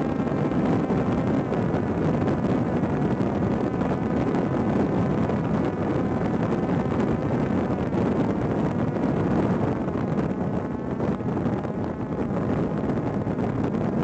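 Steady rushing wind noise, with a faint wavering hum running underneath.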